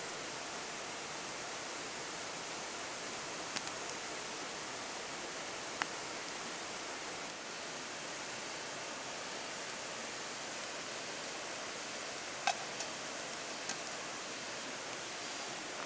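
Steady rush of a shallow river flowing over stones, with a handful of short sharp clicks, the loudest about twelve seconds in.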